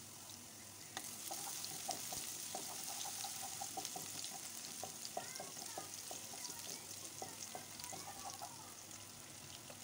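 Chopped garlic sizzling and crackling in hot oil in a pan while it fries to a light golden colour. From about a second in, a spatula stirs it, scraping and tapping against the pan.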